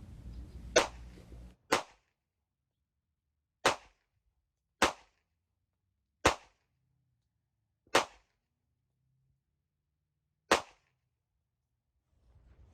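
Seven single shots from a Smith & Wesson M&P 9 9mm pistol, fired one at a time at uneven intervals of about one to two and a half seconds, each a sharp crack.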